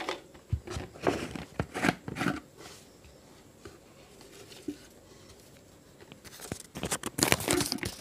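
Folded paper slips rattling and rustling inside a plastic jar as it is shaken, in several quick strokes. Near the end comes a dense run of paper crinkling as a slip is pulled out and unfolded.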